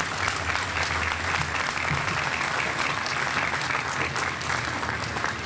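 Crowd applauding: many hands clapping in a dense, steady patter that eases slightly near the end.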